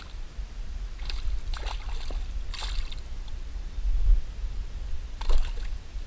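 Water splashing and sloshing at the surface beside a small boat, in several short bursts, over a steady low rumble.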